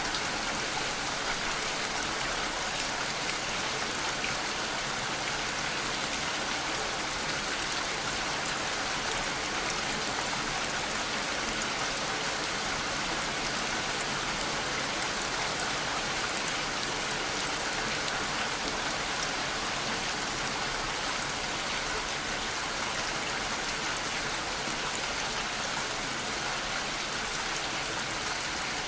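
Steady rain: an even hiss with the fine patter of individual drops, unchanging in level throughout.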